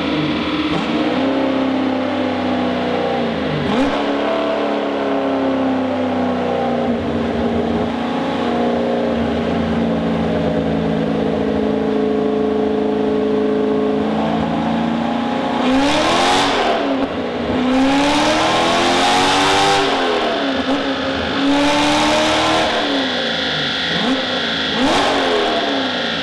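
GM Performance 525 LS3 6.2-litre V8 in a Subaru BRZ, heard through its exhaust, idling with a couple of small throttle blips in the first seconds. In the second half come four sharper revs, each rising and falling back to idle.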